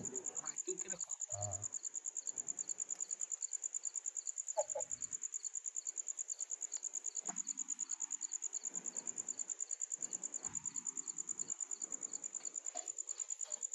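Cricket chirping steadily, a high trill pulsing evenly at about seven pulses a second, with faint low rustles underneath.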